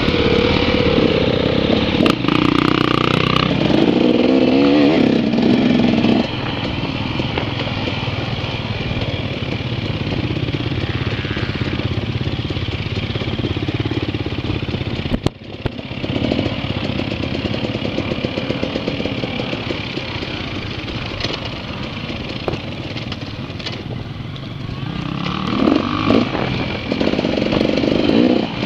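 Off-road dirt bike engines running and revving, the pitch rising and falling with the throttle. It is loudest in the first few seconds, with a brief break about halfway through.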